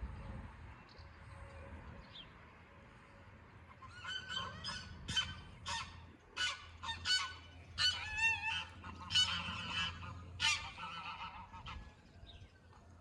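A rapid run of short, harsh honking bird calls, a dozen or more in about seven seconds, starting about four seconds in, over a steady low hum.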